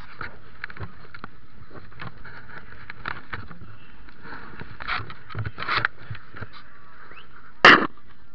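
Cabin noise inside a stripped demolition derby car: a steady running noise with scattered knocks and rattles, a few louder ones around the middle, and one loud sharp thump near the end.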